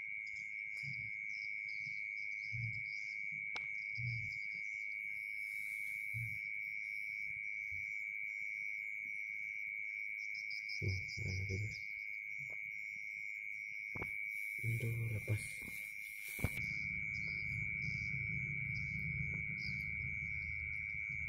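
Night insects, crickets, calling from the paddy edge: one unbroken high trill, with repeated bursts of rapid chirping above it. A low rumble comes in about three quarters of the way through.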